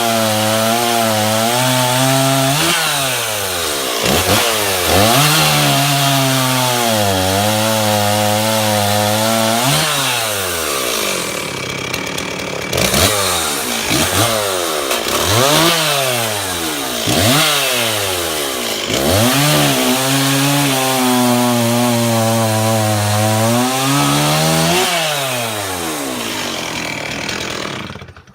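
Stihl MS360 two-stroke chainsaw with an 18-inch bar and .325 chain cutting wood. The engine pitch drops and holds as the chain pulls through the cut, then climbs back each time the saw is eased off, over and over, with a spell of quick revving in the middle. It stops abruptly near the end.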